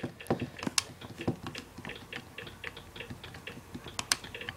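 Typing: irregular quick taps of keys, several a second, with a few sharper clicks among them.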